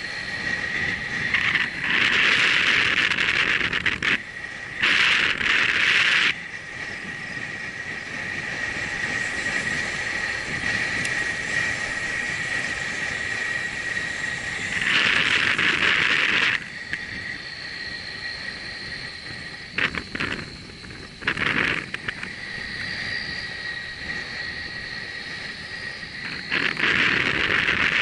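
Riding noise from a bicycle-mounted camera: a steady rushing with four loud gusts of noise, each lasting a second or two, that start and stop abruptly, and a few short knocks. A thin steady high whine runs throughout, joined by a second, higher whine about two-thirds of the way in.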